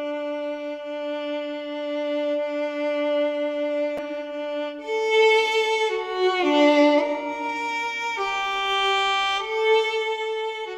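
Background music: a slow violin melody of long held notes, with quicker note changes in the middle.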